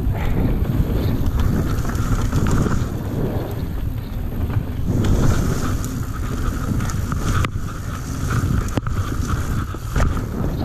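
Yeti SB150 mountain bike descending a dirt trail at speed: wind rushing over the microphone and tyres rumbling on the dirt. A steady high buzz runs through the second half, and there are a couple of sharp knocks from the bike near the end.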